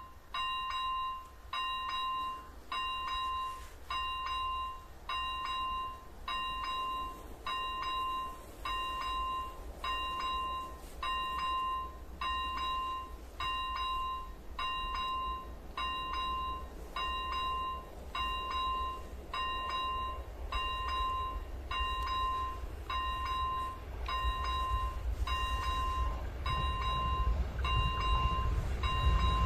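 Electronic bell of an AŽD 97 Czech level-crossing warning signal chiming about once a second, one steady electronic ding at a time, warning that a train is approaching. Near the end a low rumble from the approaching train builds up.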